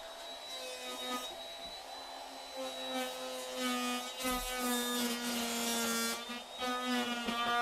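Ryobi cordless trim router running, its bit cutting into the countertop around the sink hole to enlarge it: a steady motor whine with the rasp of cutting, getting louder about two and a half seconds in.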